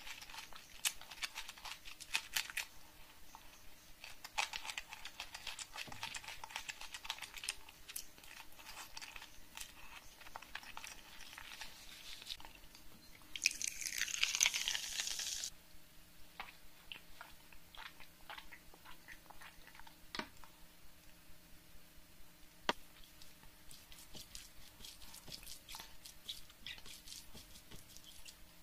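Close-miked chewing and crunching with wet mouth clicks, from eating rice and crispy fried onions. About 13 seconds in, fizzy orange soda poured from a can into a glass gives a loud fizzing pour lasting about two seconds.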